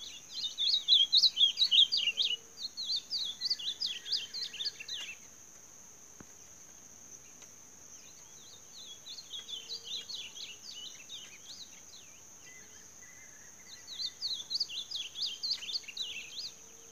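A caged young brown-plumaged azulão (ultramarine grosbeak) singing rapid, warbled high phrases three times, the middle phrase fainter, trading song with other azulões. A steady high-pitched hum runs underneath.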